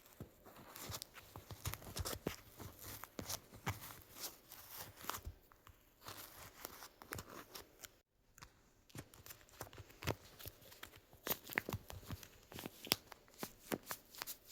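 Crackling and rustling of paper and tape being handled close to the microphone, with irregular sharp crinkles, broken by a brief cut to silence about eight seconds in.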